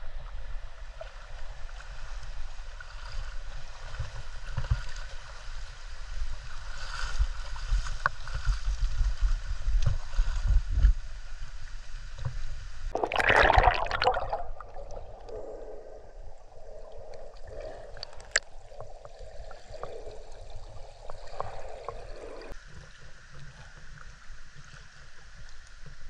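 Mountain stream water rushing and splashing, with rumble on the microphone in the first half and a loud noisy burst about 13 seconds in.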